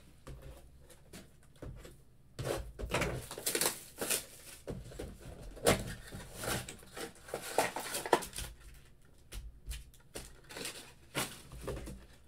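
Foil-wrapped trading card packs and a cardboard card box being handled and set down on a table: irregular crinkling and rustling with scattered light knocks.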